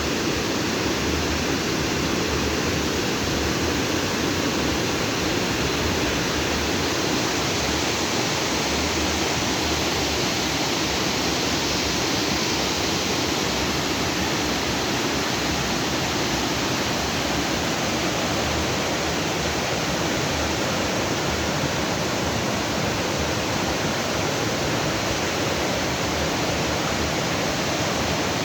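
Stream water flowing and splashing steadily over rocks, a continuous, even rush.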